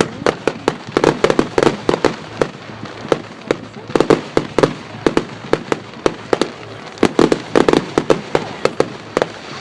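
Display fireworks going off in quick strings of sharp bangs and crackles, with thicker volleys coming every few seconds.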